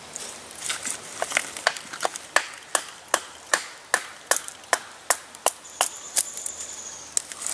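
Batoning: a wooden baton striking the spine of a Habilis Bushtool knife again and again, driving the blade down through a small stick of wood. A steady run of sharp knocks, about two to three a second.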